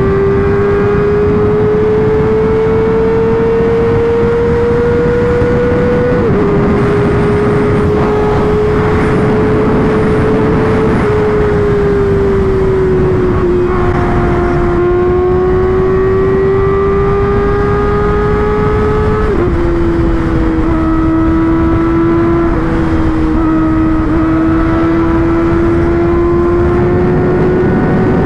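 Kawasaki ZX-4RR's 399 cc inline-four running at high revs under hard acceleration. Its pitch climbs slowly in each gear and drops sharply at quick-shifter upshifts about 6, 11 and 19 seconds in.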